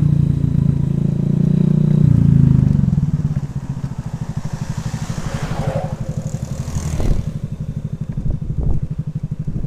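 Honda Vario scooter's single-cylinder engine running at low speed, then easing off about three seconds in to an even, pulsing low-revving beat. A single knock sounds about seven seconds in.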